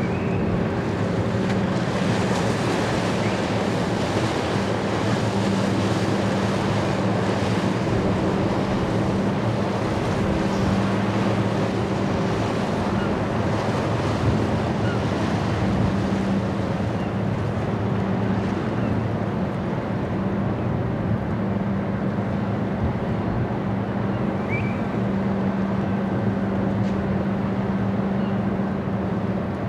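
Red Funnel vehicle ferry Red Falcon's diesel engines humming steadily at a low pitch as she comes in to berth, with wind rushing across the microphone.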